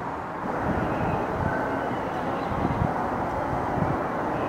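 Steady outdoor city background rumble, a continuous noisy hum with no distinct events.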